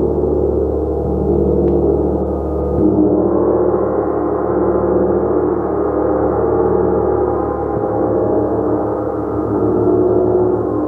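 Gong being played continuously: a loud, sustained wash of many overlapping ringing tones that swells and ebbs with no single strike standing out, with a fresh swell about three seconds in.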